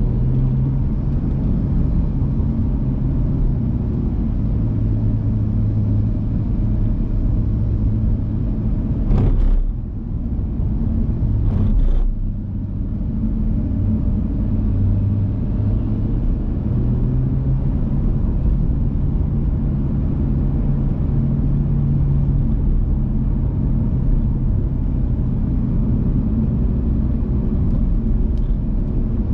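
BMW M2's turbocharged straight-six engine running under way, its pitch rising and falling with the throttle. Two short loud bursts come about 9 and 12 seconds in, each followed by a brief drop in engine sound.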